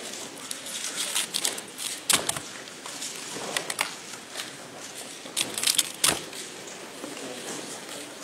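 3x3 plastic puzzle cube being handled, with clusters of quick clicks. There are two heavier knocks, about two seconds in and about six seconds in, as the cube is moved about or set down on the mat.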